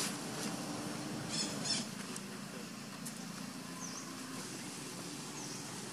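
Outdoor ambience over a low steady hum: a few short crackles in the first two seconds, and two short high bird chirps later on.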